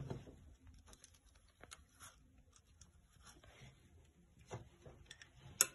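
Faint scratching and tapping of a paintbrush and materials being handled on paper, with a sharper click just before the end.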